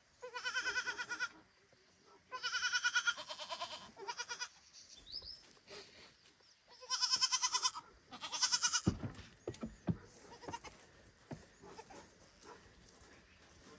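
Baby goat (kid) bleating loudly for its mother: about five long, quavering bleats, three in the first four seconds and two more around seven to nine seconds in, with a few softer low sounds after them.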